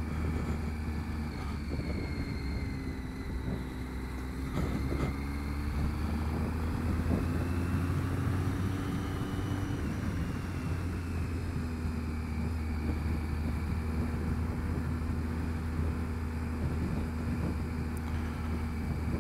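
Triumph Street Triple three-cylinder motorcycle engine running on the move, its pitch climbing for several seconds about a quarter of the way in, then settling steady, under a constant wind and wet-road noise.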